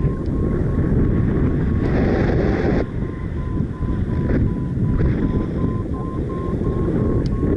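Strong wind buffeting the microphone of a paraglider pilot in flight. Through it runs a rapid string of short electronic beeps near one pitch, which rises a little and then eases back, typical of a paragliding variometer signalling climb.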